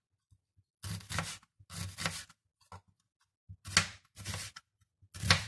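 Kitchen knife slicing a red onion into thin half-rings on a plastic cutting board: short crisp cutting strokes, each ending in a light knock on the board, with brief pauses between, about one a second.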